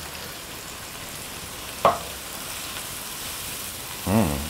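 Chopped onion, garlic, red pepper and grated carrot sizzling steadily in hot olive oil in a sauté pan over maximum heat, with one short sharp sound about two seconds in.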